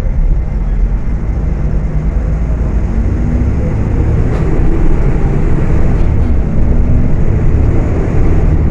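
Volksbus 18.280 OTS bus engine running as the bus drives, a steady low rumble that grows slightly louder about halfway through.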